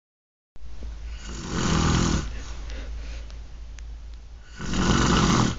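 A sleeping woman snoring: two loud snores about three seconds apart, each lasting about a second.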